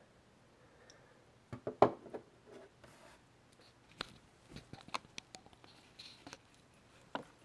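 Light handling clicks and taps as a bike stem is turned in the hand and set on a wooden tabletop. A small cluster about two seconds in is the loudest, with single ticks later on.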